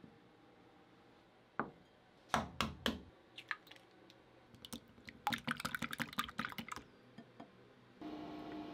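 A raw egg being beaten in a small glass bowl: a few sharp knocks on the glass, then a quick run of clicks as the utensil strikes the bowl while whisking. Near the end a steady electrical hum starts as the induction cooktop comes on.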